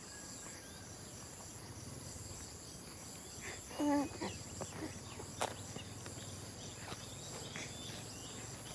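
Steady high-pitched insect chorus, with a short pitched call about four seconds in and a few faint clicks.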